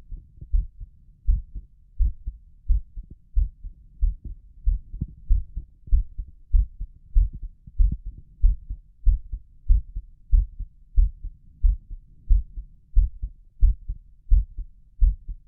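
A person's heartbeat heard through a stethoscope on the chest: a steady lub-dub, the two sounds of each beat close together, at about one and a half beats a second. The heart is excited and beating fast.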